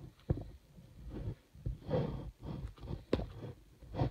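Breathing close to the microphone, with a few sharp clicks and knocks from handling.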